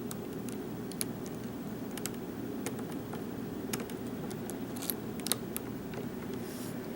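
Small, sharp clicks and taps of a lock pick and tension wrench working in a padlock, coming singly and irregularly.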